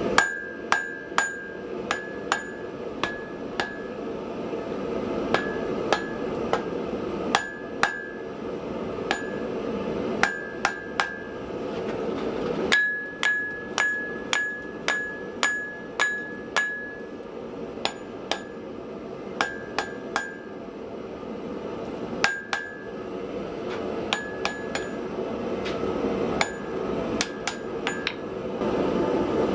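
Hand hammer blows on hot steel bar over an anvil, drawing the stock down: runs of sharp strikes, roughly one to two a second, each with a short high anvil ring. A steady rushing noise runs underneath the strikes.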